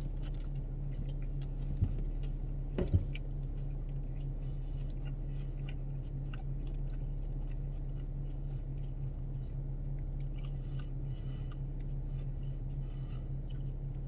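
A person chewing a crunchy Flamin' Hot Doritos taco shell, with small, irregular crunches and a few sharper bites in the first few seconds, over a steady low hum.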